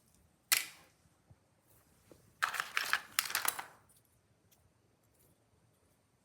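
Hard plastic of a toy casing cracking as it is pried apart: one sharp snap about half a second in, then a burst of rapid crackling clicks lasting over a second.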